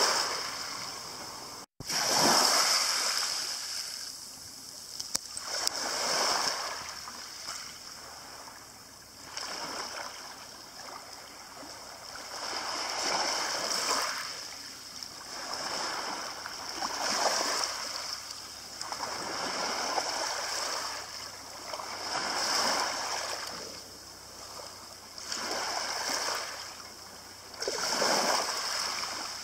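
Small waves breaking and washing over a shingle beach, one swell of hiss every two to three seconds. The sound cuts out briefly about two seconds in.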